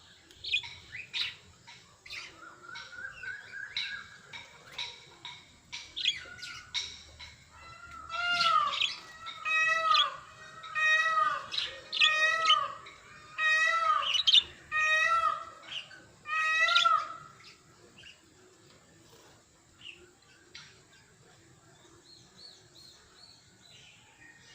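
Pet budgerigars chirping, then about eight loud calls in the middle, repeated roughly once a second, before settling back to soft chatter.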